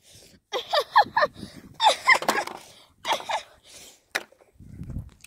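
Short bursts of a boy's voice, unclear exclamations or laughter, in three spells. A sharp click comes about four seconds in, then a low rumble of the phone being handled near the end.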